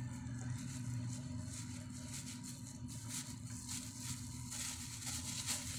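Clear plastic bag crinkling as hands dig into noodles inside it, in short crinkles that come thicker from about halfway through, over a steady low hum.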